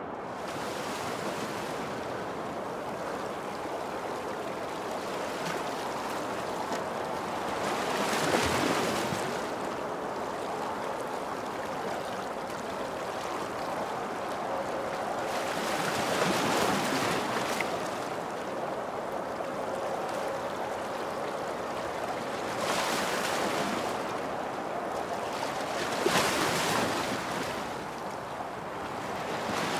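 Sea or lake waves washing in: a steady rushing that swells and falls back every several seconds.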